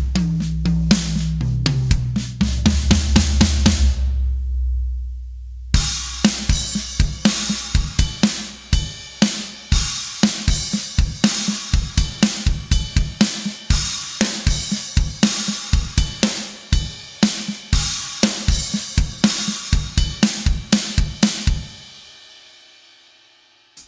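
Sampled acoustic drum kit from EZdrummer 3's Big Stage EZX library playing grooves with kick, snare, hi-hat and cymbals. For the first four seconds it plays over a low bass line. After a brief break a busier beat starts and runs until about two seconds before the end, where the last hit rings out and fades.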